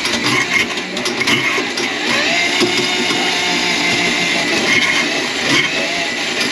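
Electric drain-cleaning machine running, its motor whine repeatedly rising and falling in pitch as the cable works against a grease clog in the kitchen drain line.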